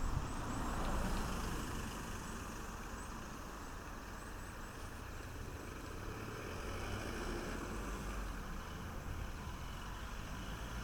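Steady outdoor background noise: a continuous low rumble with an even hiss above it, without distinct events.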